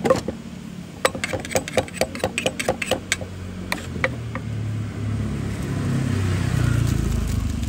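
A pestle pounding papaya salad in a mortar, a quick run of knocks about four a second for about two seconds. Then a vehicle engine running steadily, getting louder near the end.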